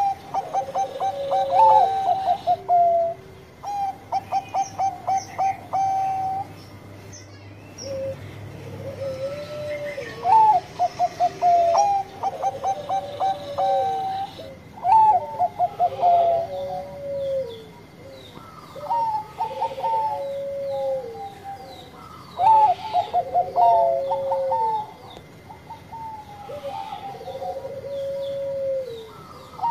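Bangkok-type zebra dove (perkutut) cooing over and over. Each phrase is a quick stuttering run of short notes followed by longer, lower coos that fall away, repeating every few seconds. Faint high chirps sound behind.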